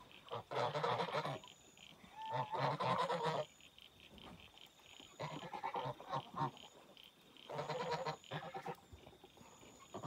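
Geese honking and gabbling in four short bursts with quieter gaps between them.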